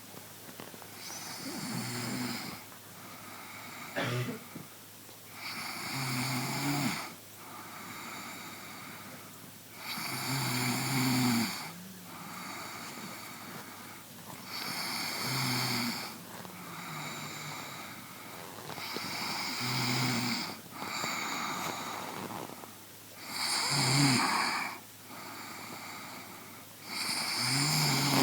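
A person snoring in slow, regular breaths. A louder snore comes about every four to five seconds, with quieter breathy ones between; there is a short click about four seconds in.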